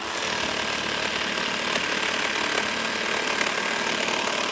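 Makita 12-volt cordless jigsaw with its orbital action switched on, sawing steadily through a wooden board. It starts at once and runs at an even pitch and level.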